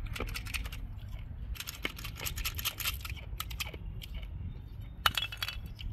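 Small pressed candy tablets rattling and clicking against a plastic Batman-head dispenser as they are shaken out into a palm, in several quick clusters of clicks.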